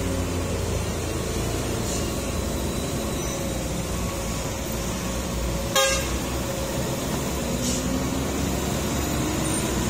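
Truck and car engines running as traffic works round a steep hairpin bend, with one short horn toot about six seconds in.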